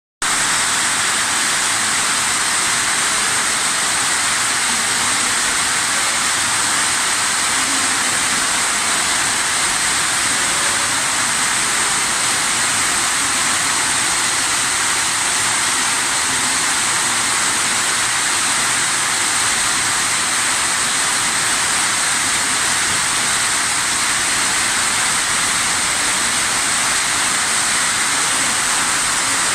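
A loud, steady hiss-like rushing noise that does not change at all, with no separate events in it.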